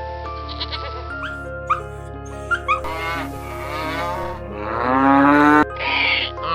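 A cow mooing: one long call that rises in pitch, loudest near its end and cutting off suddenly, over light background music.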